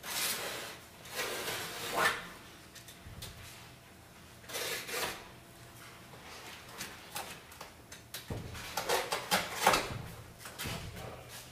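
Painted canvas being torn and pulled away from its wooden stretcher frame by hand, in several rough scraping, ripping bursts, the loudest near the end.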